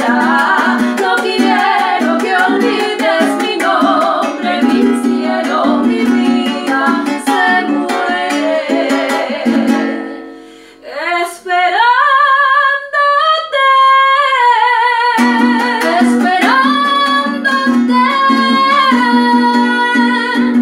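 Two women singing in harmony to a strummed Venezuelan cuatro. About halfway through, the strumming stops for a few seconds while the voices climb and hold long notes alone, then the cuatro comes back in under the singing.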